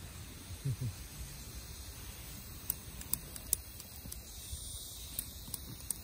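Piezo igniter of a SOTO gas stove clicking, about half a dozen sharp clicks spread through the second half, without lighting the burner. Sand in the igniter sometimes stops it from sparking.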